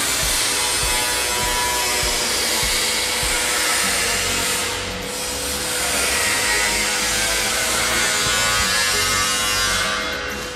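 CNC aluminium arch-bending machine running, its rollers working an aluminium profile into a curve: a steady hum under a grinding, rubbing hiss that eases briefly about four and a half seconds in and again near the end.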